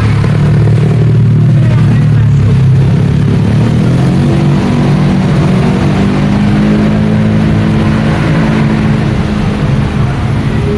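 Road traffic with a motor vehicle's engine running close by, loud, its low hum strongest in the first few seconds and shifting in pitch after that, over a steady wash of traffic noise.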